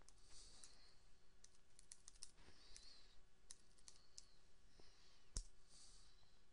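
Faint typing on a computer keyboard: a run of scattered key clicks, with one louder key press about five seconds in.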